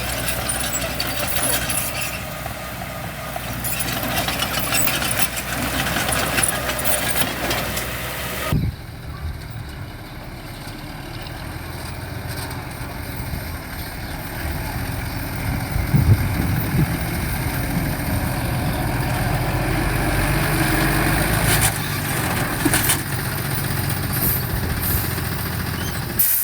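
Diesel engines of heavy construction machinery running. About eight and a half seconds in, the sound changes abruptly from a harsher, noisier running to a lower, steady engine drone.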